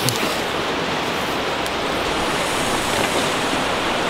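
A lit firework hissing steadily, an even loud rush of noise.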